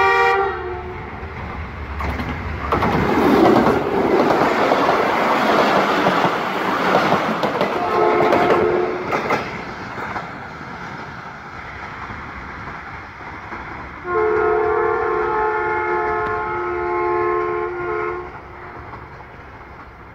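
Diesel locomotive horn sounding a short multi-tone blast as the train approaches, then the train passing close by with loud wheel clatter and engine noise for several seconds, with a second short horn blast as it goes by. About fourteen seconds in, a long multi-tone horn blast lasts about four seconds.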